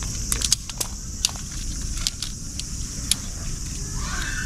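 Scattered light clicks and taps as a tarp guy rope and aluminium tarp pole are handled during pitching, over a steady high-pitched background hiss. Near the end a short rising whistle comes in.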